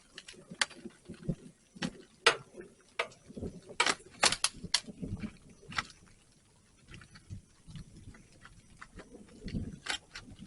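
Rummaging through a dumpster: irregular clicks, knocks and rustles of packaging and drink cans being shifted and handled, with a quick cluster of sharp clicks about four seconds in.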